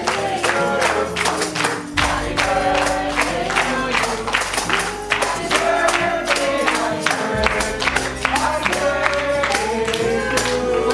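Background music: a song's instrumental stretch with a steady beat and a melody line, no words sung.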